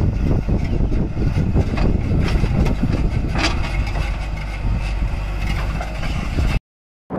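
JCB 3DX backhoe loader's diesel engine running while the backhoe swings a bucket of soil into a tipper truck, with short clatters and a sharper knock about halfway through. The sound cuts out suddenly near the end.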